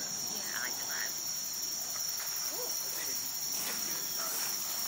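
Steady high-pitched insect chorus from crickets or similar summer insects, holding one even pitch throughout.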